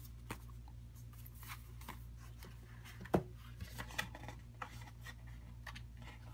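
Paper handling: a large softcover photo book being lifted and its stiff card cover opened, with scattered light rustles and taps and one louder sharp sound about three seconds in.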